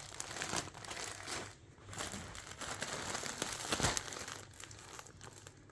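Packaging crinkling and rustling as skeins of yarn are handled and pulled out of a shipping box, with a short lull about a second and a half in and a sharper crackle near four seconds.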